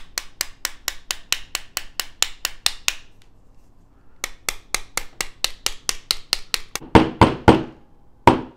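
Small hammer tapping a pin punch to drive the grip pin out of a Smith & Wesson 637 revolver frame. Quick light taps come at about five a second, pause briefly, then start again. Near the end come three harder blows and one last heavy strike.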